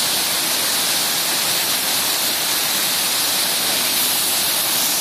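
Small waterfall cascading over rocks: a loud, steady rush of falling water.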